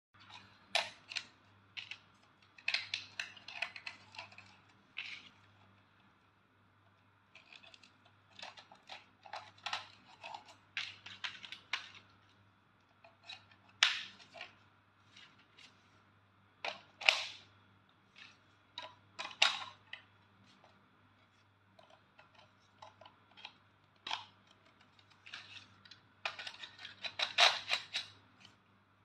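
Hard plastic parts of an electric gel ball toy blaster being handled, set down and fitted together: irregular clicks, knocks and small rattles, with a quick run of clicks near the end.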